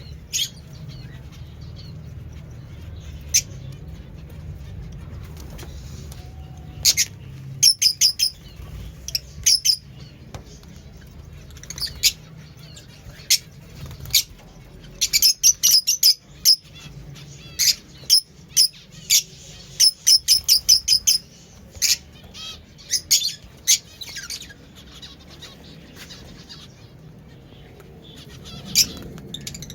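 Fischer's lovebird calls: short, sharp, high-pitched chirps, a few at first, then coming in quick clusters through the middle and thinning out again near the end. A steady low hum runs underneath.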